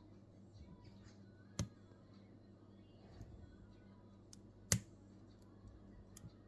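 Lock picking tools working in a Nemef NF2 lock cylinder: faint scraping of the pick on the pins, with two sharp metallic clicks about three seconds apart, over a steady low hum.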